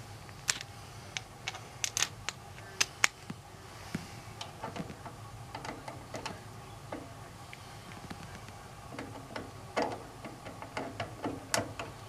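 Irregular small clicks and taps of hands and tools working the wiring at a gas furnace's control board, over a steady low hum.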